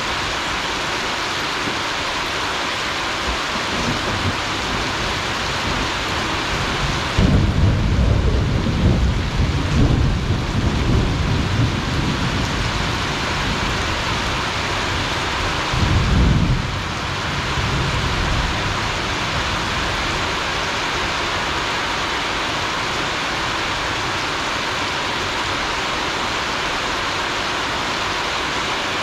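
Heavy tropical rain falling steadily on grass and banana leaves, with thunder rumbling loudly for several seconds starting about seven seconds in and again briefly a little later.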